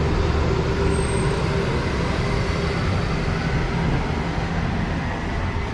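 Street traffic: a motor vehicle's engine running steadily close by, a continuous low hum over road noise.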